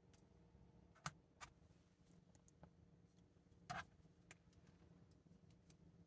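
3D-printed plastic crossbow parts clicking as they are handled and snapped together: two sharp clicks about a second in, a louder, slightly longer clack past the middle, then a few faint ticks.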